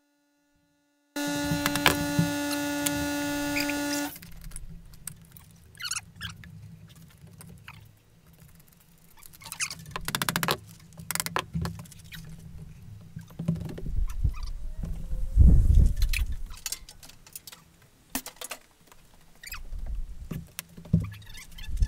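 A new motorcycle roller chain clinking and rattling as it is handled and test-fitted on the sprockets, with scattered metal clicks and a few low thumps, the loudest about two thirds of the way in. Near the start a steady buzzing tone runs for about three seconds, then stops.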